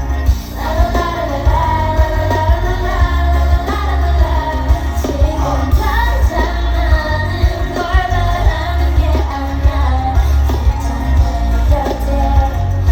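Pop song with sung vocals over a heavy bass, played loud through a concert sound system during a sound check.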